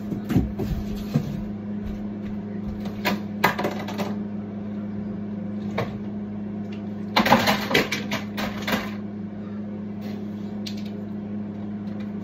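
Scattered clicks and knocks of objects being handled, with a denser run of clatter about seven seconds in, over a steady low hum.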